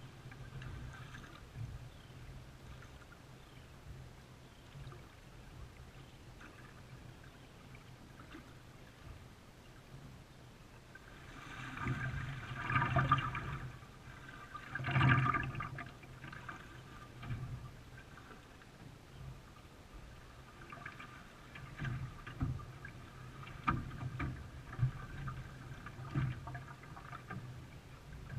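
Water splashing and sloshing around a canoe on the river, with paddle strokes and a steady low hum. There are two louder swells of splashing about halfway through, and short, irregular splashes near the end.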